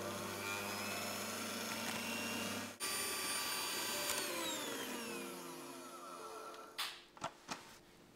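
Electric hand mixer running, its twin beaters whisking banana batter in a glass bowl. About halfway through the motor note jumps, then falls away as the mixer is switched off and spins down. A few sharp knocks follow near the end.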